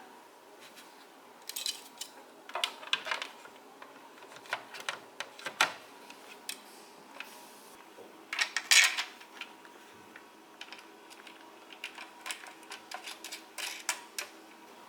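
Irregular small clicks, taps and rattles of plastic parts and tools being handled during work on the interior fan of a Thetford T2095 compressor fridge. A faint steady hum comes in about halfway through.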